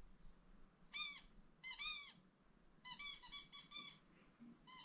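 Squeaky toy squeezed repeatedly, giving high-pitched squeaks that rise and fall in pitch: one about a second in, a pair near two seconds, a quick run of squeaks around three seconds, and one more at the end.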